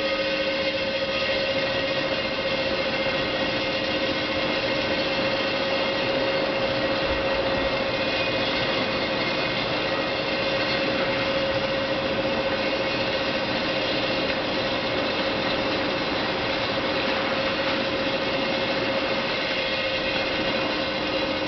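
TS Roaster continuous industrial roaster running, its arms stirring the grain through the drum: a steady, unbroken mechanical noise with a constant hum.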